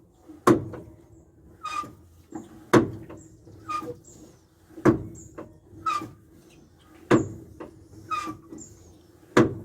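Hand-worked pumping while priming a truck's clutch hydraulics: each stroke gives a sharp knock and, about a second later, a short squeak, repeating roughly every two seconds, four strokes in all.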